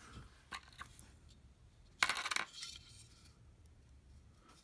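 A small metal object clatters briefly on a wooden tabletop about two seconds in, with a faint click of handling just before it.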